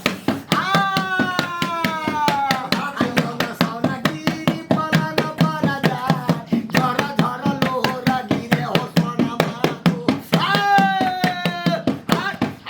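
A singer chanting an Alha folk ballad in long held notes that slide downward, over a steady percussion beat of sharp strokes about four a second.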